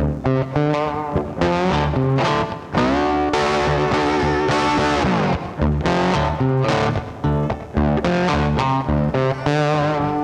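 Background music led by an electric guitar with distortion, playing rhythmic chords and riffs over a bass line, with a guitar note bending down in pitch about five seconds in.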